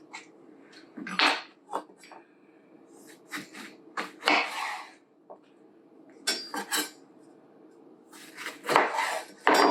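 Lemons being juiced by hand in a kitchen: several short bursts of squeezing and scraping, with clinks of utensils against dishes.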